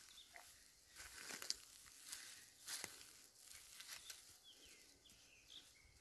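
Faint footsteps crunching on a dry forest path of needles and twigs, irregular, with a few faint bird chirps in the second half.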